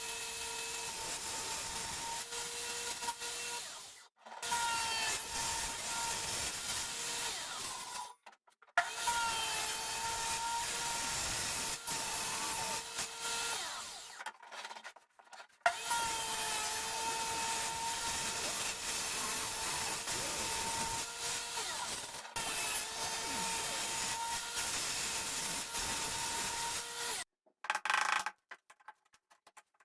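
An electric power tool runs through wood with a steady whine and hiss. The pitch dips slightly now and then as it takes load, and it cuts off abruptly several times, then a few short knocks come near the end.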